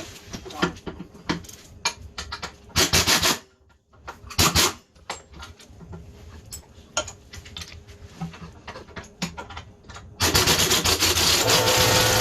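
Hand-tool work on a quad's engine: scattered metal clicks and knocks with two short scraping rasps. About ten seconds in, a steady, loud, motor-driven whirring starts, like a power tool running.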